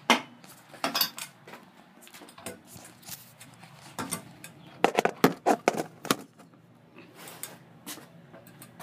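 MGP VX4 pro scooter making sharp metallic clicks and rattles as it is leaned, in irregular clusters with the busiest run about four to six seconds in.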